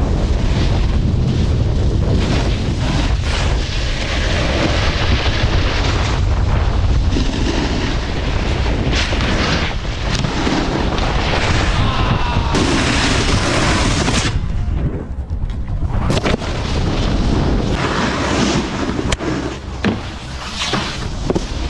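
Heavy wind rumble on the microphone over the scrape of a snowboard riding across snow, with a few sharp knocks.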